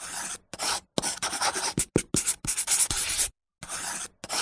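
Dry scratching or rubbing noise in a string of short, uneven bursts, each cut off sharply into silence.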